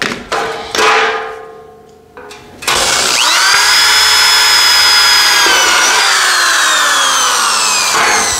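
Aluminum loading ramp clanging twice with a ringing tone as it is handled on the concrete floor. About three seconds in, a cordless drill spins up with a rising whine and bores into the ramp's aluminum end plate, its pitch sliding down in the last couple of seconds as it slows.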